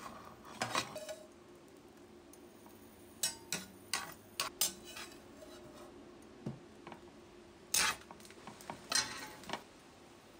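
Kitchen clatter of dishes and utensils: a string of separate clinks and knocks, the loudest about eight seconds in, over a faint steady hum.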